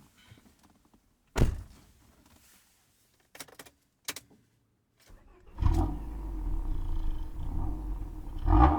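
A thump and a few short clicks, then the Honda Prelude's red-top H22A engine starts about five seconds in and runs steadily, with a short rise in revs near the end.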